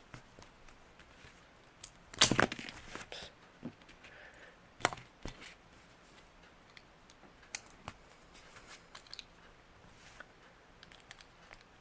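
LEGO plastic pieces being handled and pressed together: scattered clicks and snaps as grille pieces are attached, the loudest cluster about two seconds in.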